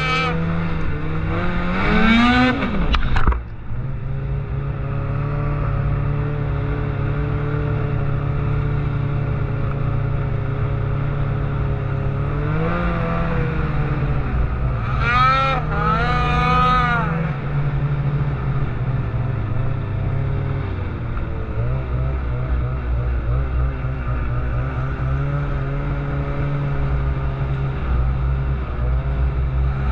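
Ski-Doo 800 E-TEC two-stroke snowmobile engine running while riding over snow. It revs up near the start and drops off sharply a little after three seconds, then runs steadily with a few short rises in revs midway.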